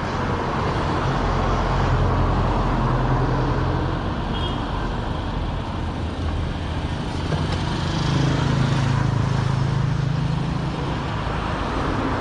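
Steady running of an engine or motor with road-traffic noise; its low hum shifts slightly about eight seconds in.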